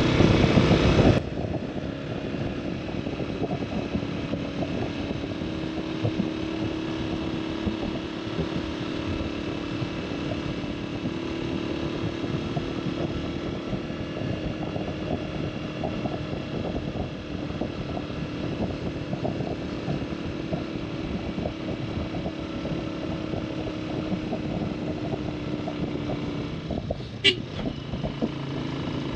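Motorcycle engine running steadily while being ridden, a continuous drone with one held tone. A brief sharp click comes near the end.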